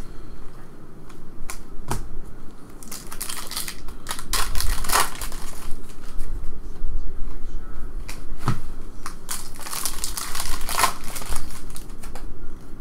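A stack of 2014 Upper Deck SP Authentic golf trading cards being flipped through in the hands, each card slid from the front to the back: irregular rustling of card stock with sharp clicks.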